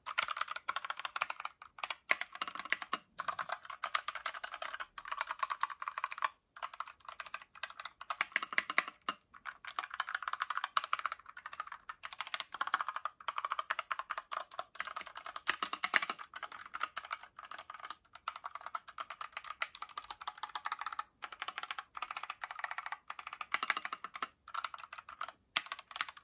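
Typing on an Akko 3068B Plus mechanical keyboard with Jelly Pink linear switches: a rapid, continuous clatter of keystrokes, broken by a few brief pauses.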